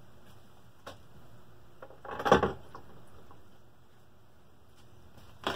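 Workshop handling noises: a short, loud clatter about two seconds in as the just-removed transmission gear and shaft are set down on the bench, with faint clicks of the part and case being handled before and near the end.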